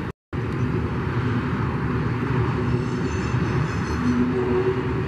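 CSX coal train passing, a steady heavy rumble, with a faint high whine from about three to four seconds in. The sound cuts out for a split second right at the start.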